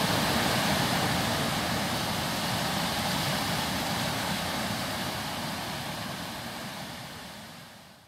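Steady rush of a waterfall and white-water rapids, fading away toward the end.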